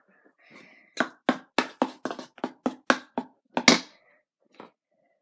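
A quick run of about a dozen sharp taps, roughly four a second, the last one the loudest, then a single faint tap.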